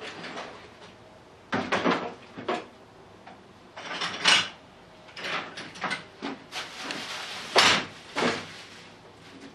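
Someone rummaging through a tool drawer: the drawer sliding and hand tools clattering and shuffling in several irregular bursts, the loudest clatter about three quarters of the way through.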